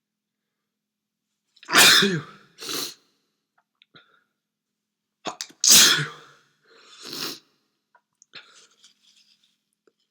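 A person sneezing twice, about four seconds apart, each loud sneeze followed by a shorter, quieter burst, then a few faint breathy sounds near the end.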